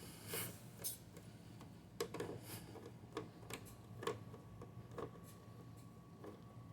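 Faint, irregular clicks and ticks of a Phillips screwdriver turning screws out of a Dell Inspiron One 2320's back cover, over the steady low hum of an air conditioner.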